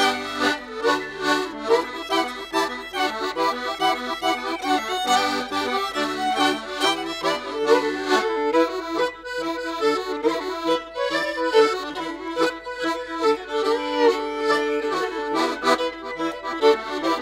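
Accordion-led Irish folk tune with a quick, steady rhythm.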